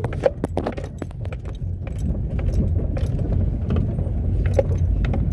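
Chevrolet Meriva's front suspension creaking and knocking while driving, heard inside the closed cabin over a steady road rumble, as many irregular sharp clicks and knocks.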